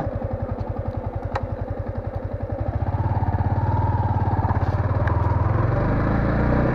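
Yamaha MT-15 V2's 155 cc single-cylinder engine idling with an even beat. About three seconds in it picks up revs and runs steadily louder as the bike is ridden off.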